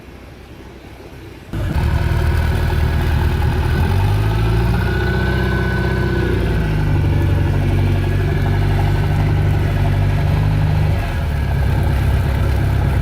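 Mercury 4-cylinder sterndrive engine starting up about a second and a half in, then running steadily, its revs rising briefly and settling back. This is the test run on a water supply after a new water-pump impeller was fitted.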